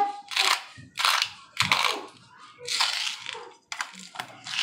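Hand salt grinder being twisted over a mixing bowl: a string of short, gritty crunching grinds, roughly one or two a second.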